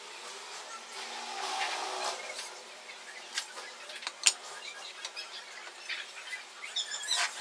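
Metal parts of a motor and cast aluminium gear case being handled and fitted together by hand: scattered clinks and scrapes, with one sharp knock about four seconds in.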